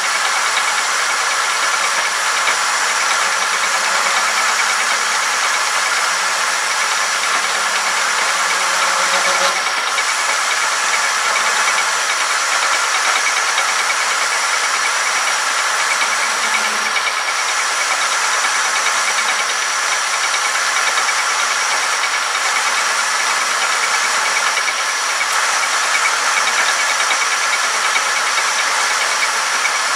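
Homemade metal-turning lathe running under load, its cutting tool taking a continuous cut along a stepped metal shaft: a steady hissing cutting noise over the machine's running.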